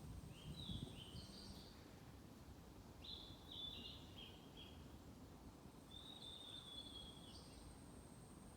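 A small songbird singing short phrases of quick, stepped whistled notes, three phrases about three seconds apart, faint. A thin, steady, very high note runs underneath for part of the time.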